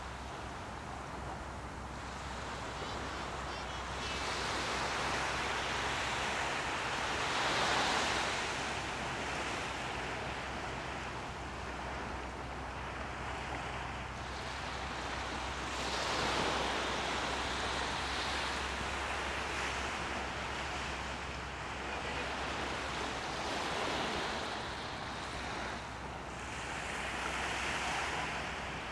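Water waves washing in over steady wind noise, the rush swelling and fading about every eight seconds.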